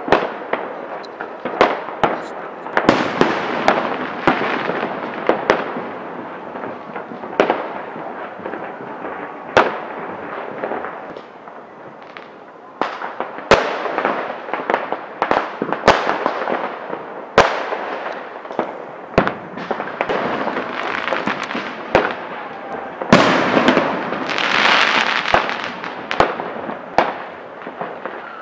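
Fireworks and firecrackers going off: many irregular sharp bangs, some louder and some fainter, with a long stretch of dense crackling a few seconds in and another near the end.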